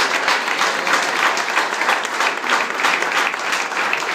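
A group of people applauding: many hands clapping together in a dense, steady patter.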